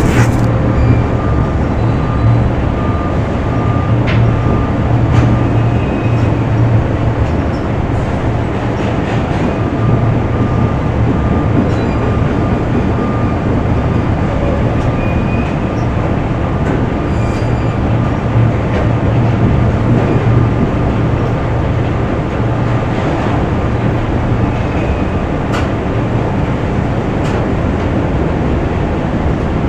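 Factory machinery running with a continuous heavy low rumble, broken by scattered metallic clicks and knocks. A faint high whine sounds over it and stops about six seconds in.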